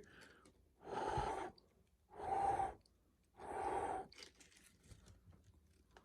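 A person blowing on a cup of hot tea to cool it: three breaths, each about half a second long.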